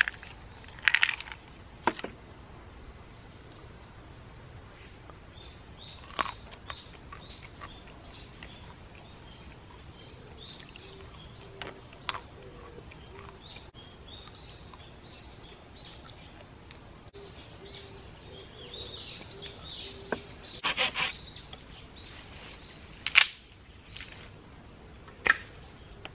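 Outdoor woodland ambience with small birds chirping now and then, and a scattering of sharp knocks and clinks of cups and containers being handled and set down on a camp table, the loudest near the end.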